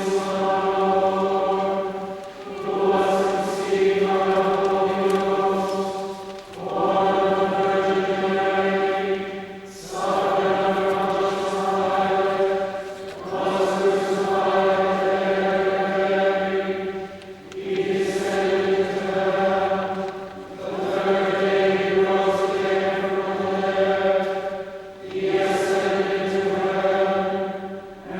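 A choir chanting a text in phrases held largely on one pitch, with short breaks for breath between the phrases.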